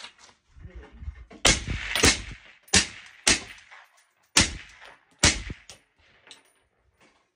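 AR-10 rifle in 7.62x51 (.308) with a 20-inch barrel, suppressed by a Wix 4003 oil-filter solvent trap, firing about six shots in quick succession, each with a short ringing tail.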